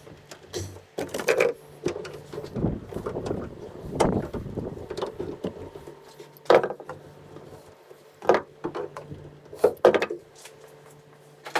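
Scattered clicks, knocks and rattles of small metal parts being handled as a cable clamp is fitted onto a tailgate support cable, over a steady low hum.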